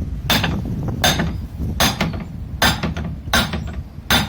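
A hammer striking metal parts of a scrapped motor, six loud ringing blows at a steady pace of about one every three-quarters of a second.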